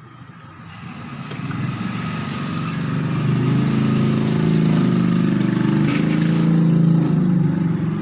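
A motor vehicle engine running close by, with a low, pitched drone. It grows louder over the first few seconds, holds, and eases off a little near the end.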